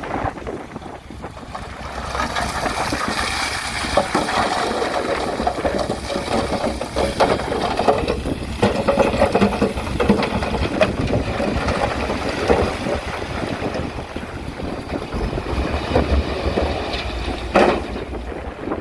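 Bulldozer's diesel engine running, with scattered clanks and crunches of gravel being worked and wind buffeting the microphone; one sharp clank near the end.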